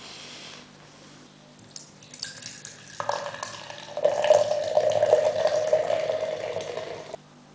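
Running liquid splashing and gurgling, like a tap running, with scattered drips and clicks; it grows louder about three seconds in, louder again a second later, and cuts off suddenly near the end.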